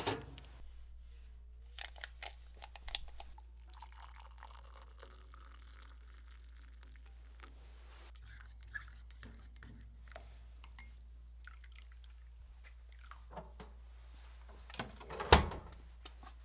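A mug and kitchenware being handled while coffee is made: scattered light clinks and knocks, with one sharp, much louder knock about fifteen seconds in.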